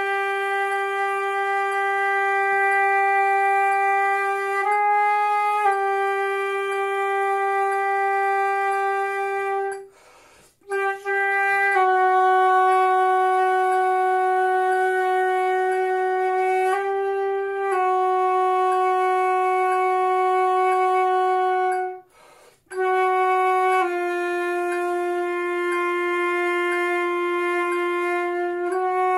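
Solo flute playing a long-tone sonority exercise: a short note, then a smaller step down into a long, steady held note of about five beats, the pattern moving lower each time. Brief silent breaths come about ten and twenty-two seconds in.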